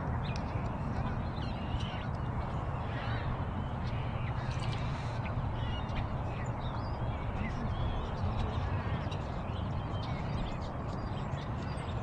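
Tropical forest ambience: scattered short bird chirps and calls over a steady low rumble.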